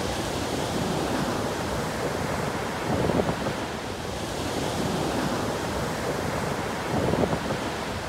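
Small waves breaking and washing up a sandy beach, with wind buffeting the microphone; the surf swells a little about three seconds in and again near the end.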